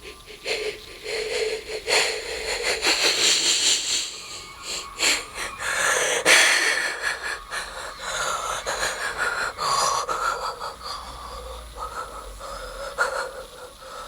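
Wheezy, breathy evil laugh sound effect, broken into short bursts.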